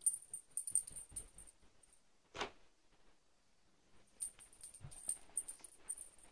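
Small bell jingling as a cat moves and plays, in quick runs of light, high tinkles. The tinkling comes in two spells, with one soft thump or rustle between them.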